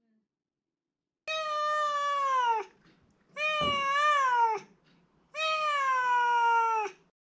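Domestic cat meowing three times, long drawn-out meows of over a second each that slide down in pitch at the end.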